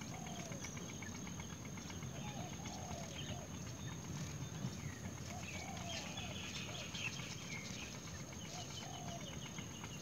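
Faint calls of great myna nestlings begging at the nest while being fed: short rising-and-falling calls every second or so, with a higher buzzy chatter a little past halfway, over a steady low rumble.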